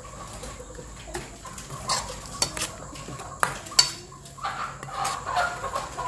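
Kitchen utensils clinking, knocking and scraping against a dish while the herbs are stirred into a bowl of minced buffalo laab, in irregular strokes with a few sharper clinks.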